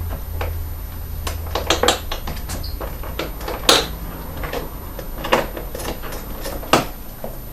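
Irregular metallic clicks and knocks of a wrench on the motorcycle's 8mm seat bolt and of the seat being handled, with the loudest knock about halfway through.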